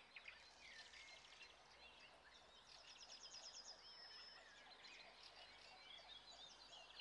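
Faint chorus of small songbirds: scattered chirps and short whistled notes, with a fast high trill about three seconds in.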